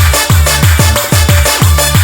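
Electronic dance music with a fast kick drum beating about four times a second over a steady bass line.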